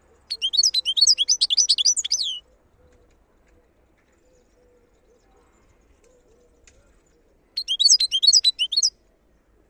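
Wild European goldfinch singing two phrases of rapid, high twittering notes. The first lasts about two seconds, and after a pause a shorter second phrase comes near the end.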